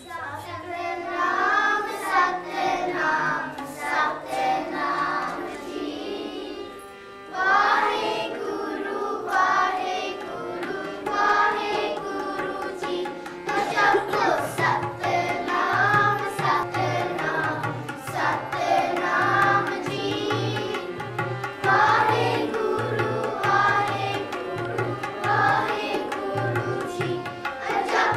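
A group of children singing Sikh kirtan to harmonium accompaniment, with tabla coming in about halfway through and keeping a steady beat.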